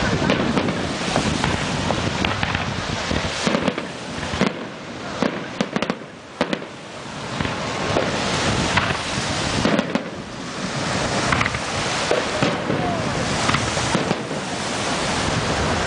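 Aerial fireworks going off in a dense barrage: overlapping booms and crackling bursts follow one another rapidly, with a short lull of a few sharp cracks about six seconds in.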